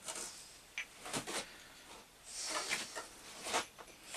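Light clicks and knocks, with a short scrape about halfway through, from a freshly machined metal flange washer being handled and tried on a bench grinder shaft. Its bore is slightly too small for it to go on.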